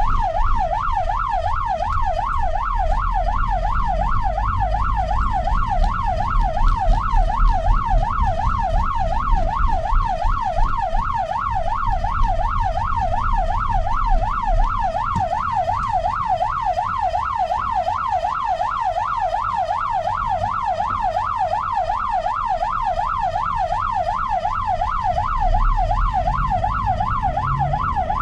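Ambulance siren in a fast yelp, its pitch sweeping up and down about three times a second without a break, over the low rumble of the moving vehicle.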